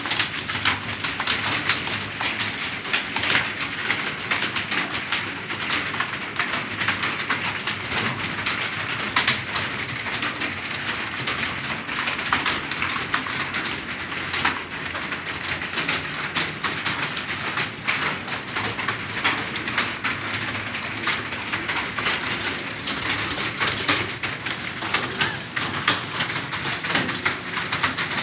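Fast, continuous typing on a computer keyboard: a dense, unbroken stream of key clicks at a steady pace.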